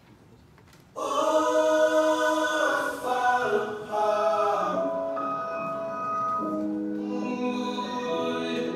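Recorded music comes in suddenly about a second in: sung voices holding choir-like chords that change every second or two.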